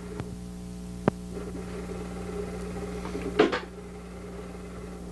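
Steady electrical hum on a Super 8 sound-film track, with one sharp click about a second in and a short, louder noisy burst about three and a half seconds in.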